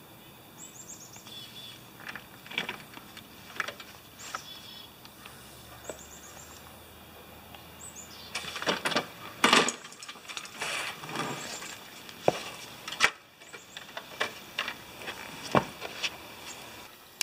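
Scattered knocks and rattles as a tilted push mower and a small plastic tub of drained engine oil are handled, loudest a little past the middle. Short bird chirps sound in the background.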